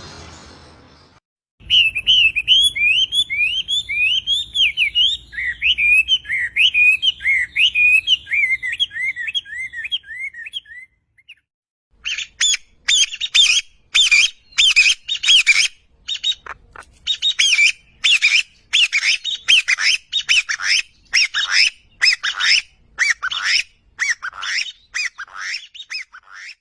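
A songbird singing: a fast, warbling run of chirping notes for about ten seconds, then after a short break a series of loud, clear notes repeated about twice a second.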